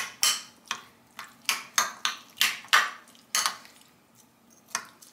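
Metal spoon stirring chunky pineapple salsa in a ceramic bowl, scraping and clinking against the bowl about three times a second. After a pause of about a second, one last clink comes near the end.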